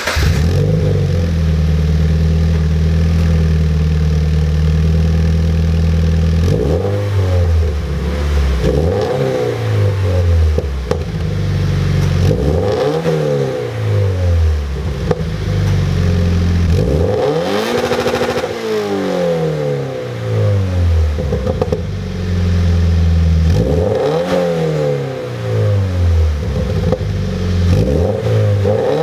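A warm Subaru BRZ's 2.0-litre flat-four boxer engine, breathing through an aftermarket MXP Comp RS catback exhaust, idles steadily just after starting. After about six seconds it is blipped about ten times, the pitch rising and falling with each rev; one blip about two-thirds of the way through goes higher than the rest.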